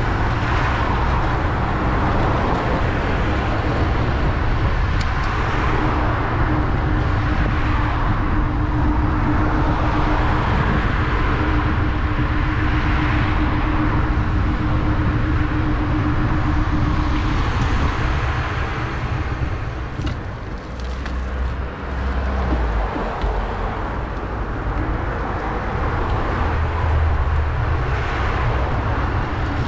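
City street traffic noise heard from a moving bicycle: a steady low rumble with car traffic, and a steady hum held from about six seconds in to about eighteen. The noise dips briefly about two-thirds of the way through.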